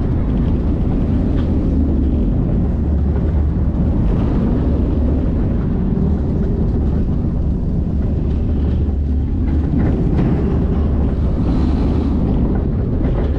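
Wind rushing over the microphone and a steel roller coaster train rumbling along its track: a steady, loud rush, heaviest in the low end.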